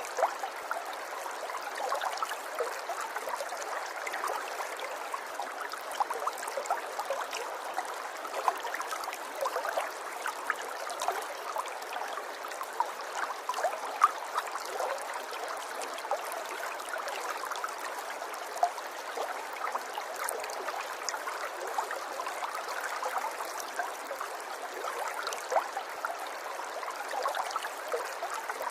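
River water running in a small stream, a steady babble of many small splashes and trickles.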